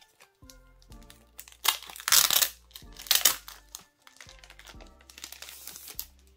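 Clear plastic wrapping crinkling as it is pulled off a packaged item, in several loud bursts about two, three and six seconds in. Soft background music plays underneath.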